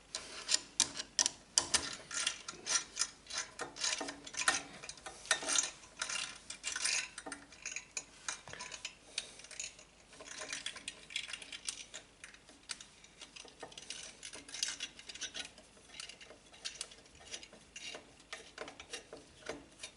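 Irregular small clicks and rattles of CPU cooler mounting hardware, metal screws and brackets, being handled and screwed into place.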